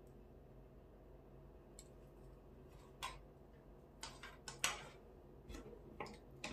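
Scattered light clicks and taps from hands handling an opened toggle cord switch and lamp cord: a couple of single clicks, then a quick cluster of them in the second half.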